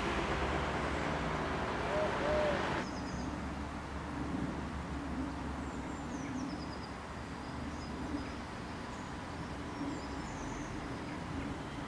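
Alstom Citadis Dualis tram-train approaching a station platform: a low, steady hum and rumble from the train, with birds chirping high above it. A broader rushing noise drops away suddenly about three seconds in.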